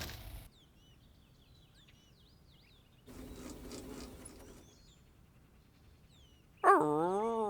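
A television show's music and cheering cut off abruptly as the power fails. Then it is quiet, with faint cartoon birdsong of short chirps. Near the end comes a loud, short, wavering 'hmm'-like voice sound.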